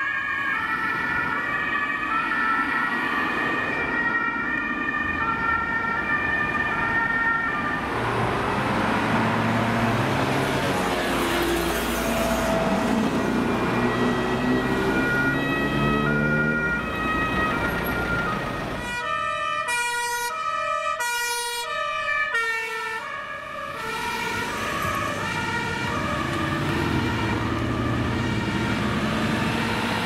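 Two-tone sirens (Martinshorn) of German emergency vehicles, each switching back and forth between a high and a low note. Several sirens sound in turn: a lower one drifts upward in pitch midway, and a clear one sounds again about two-thirds of the way through, over the running engines of cars in traffic.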